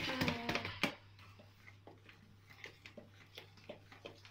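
Faint scattered clicks and taps from the hand mixer's beaters and the mixing bowl while the mixer is switched off, over a low steady hum. A brief murmur of voice comes in the first second.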